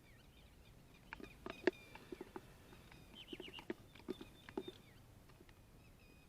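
Scattered light clicks and taps from hands handling the fishing gear and bait, loudest just under two seconds in. Small birds chirp faintly and repeatedly in the background.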